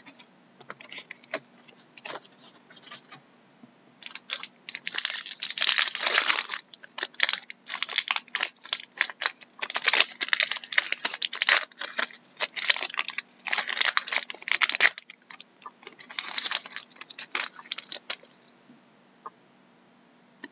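A foil trading-card pack wrapper crinkling and tearing as it is ripped open by hand. It comes as dense crackling bursts that start a few seconds in and stop shortly before the end, with only a few light clicks around them.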